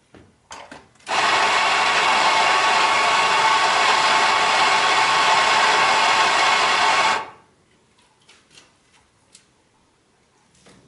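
Electric espresso grinder running for about six seconds, grinding coffee into a portafilter. It starts about a second in and cuts off near the middle, with a few light clicks before it and small knocks after.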